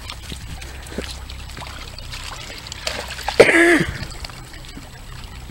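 Wellington boots splashing and squelching through wet mud and shallow water, with scattered small splashes. About three and a half seconds in there is a loud, short vocal sound, slightly falling in pitch.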